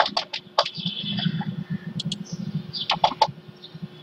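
Computer keyboard keystrokes, a quick run of key taps in the first second, a single tap about two seconds in and another short run around three seconds in, as a mistyped command is deleted from the code editor.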